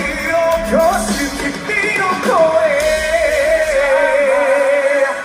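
Live rock band with a male lead vocalist singing in Japanese during a sound check. About two seconds in, he slides up into a long held note with vibrato and sustains it almost to the end.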